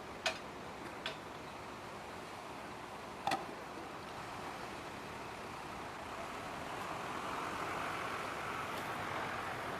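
Steady background noise broken by three short, sharp knocks: two about a second apart, then one more about two seconds later. The noise grows louder near the end.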